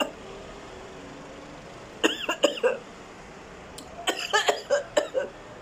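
A woman coughing in two bouts of short coughs, one about two seconds in and one about four seconds in, set off by the burn of ghost pepper noodles.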